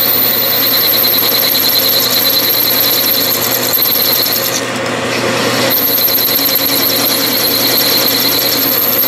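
Metal lathe cutting a groove with a cutoff tool plunged into the spinning workpiece: a steady high-pitched whine from the cut over the lathe's motor hum. The whine breaks off for about a second midway, then comes back.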